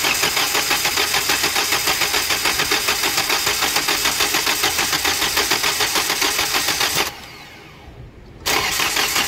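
Starter motor cranking a common-rail diesel engine with an even rhythmic pulsing from the compression strokes, without firing; it stops about seven seconds in and cranks again about a second and a half later. The cranking is to push air out of the fuel system through the open injector return lines.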